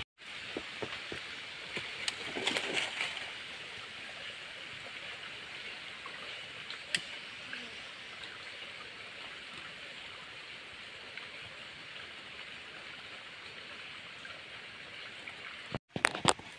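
Shallow creek water trickling over stones, a steady soft hiss, with a few sharp clicks and knocks scattered over it, the sharpest about seven seconds in.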